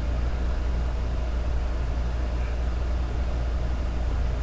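Steady low hum with a faint hiss above it, unchanging throughout, with no speech or sudden sounds.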